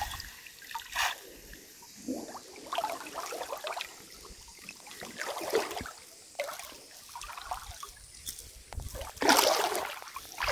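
Pond water sloshing and swishing around a man's legs as he wades thigh-deep with a wet cast net, in irregular strokes, with a louder splash about nine seconds in.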